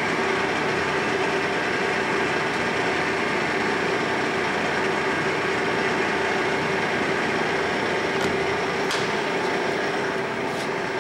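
Clausing Colchester Mascot 1600 engine lathe running under power: a steady mechanical hum with a constant mid-pitched whine. A few light clicks come near the end.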